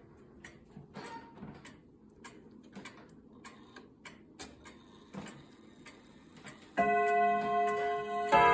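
Early 1930s F.M.S. (Mauthe) box regulator wall clock's pendulum movement ticking steadily. About seven seconds in it begins its bim-bam strike on long tuned chime rods: a first stroke rings one deep note, and near the end a second stroke sounds two notes together, forming a triad.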